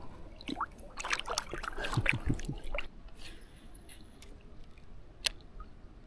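Water splashing and dripping close by in short, irregular bursts for about two seconds, then quieter, with a single sharp click about five seconds in.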